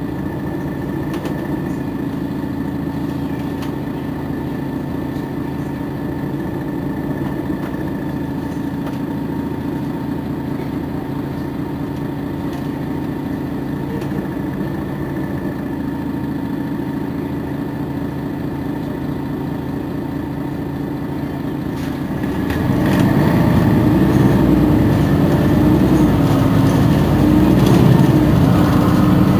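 Mercedes-Benz Citaro G C2 articulated city bus's diesel engine idling steadily with a faint steady whine. About 22 seconds in it speeds up and grows louder as the bus moves off.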